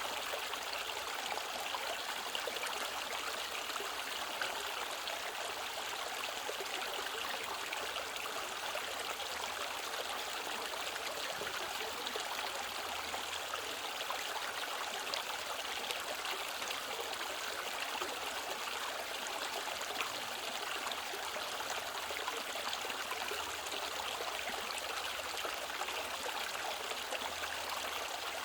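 Mountain stream flowing over rocks: a steady rushing and trickling of water.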